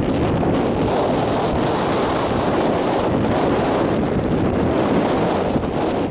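Wind buffeting the microphone: a steady, loud rumbling rush with no distinct events.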